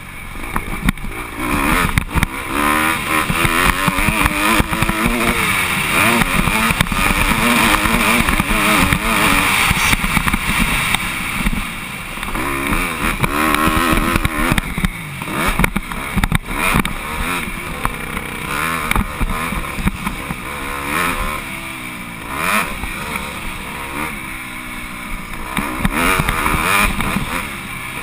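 Dirt bike engine ridden hard, its revs rising and falling over and over as the throttle is opened and closed, with short drops in loudness where the rider eases off.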